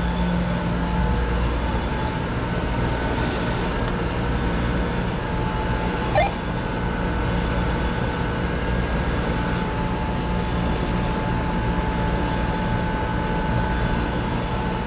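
Steady rushing rumble of water flowing through the cooling-tower water piping as its valves are reopened, with a steady machinery hum under it. A brief sharper sound comes about six seconds in.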